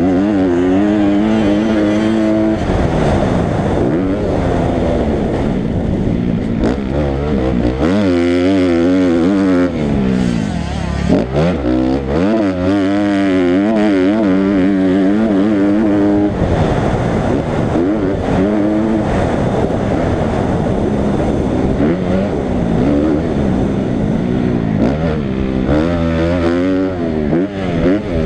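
Dirt bike engine heard from on board while riding a motocross track, revving up and down again and again as the throttle is opened and closed.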